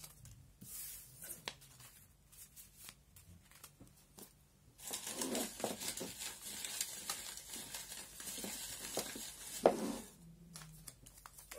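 Folded paper message slips rustling and crinkling as they are taken out of a bowl and laid out, with small taps. Light scattered clicks come first, then dense rustling for about five seconds, with one sharp tap near the end.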